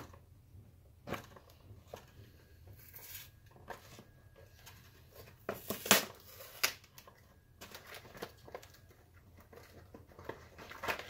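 Cardboard and plastic packaging being opened by hand: crinkling and rustling, with scattered sharp knocks and taps, the loudest about six seconds in.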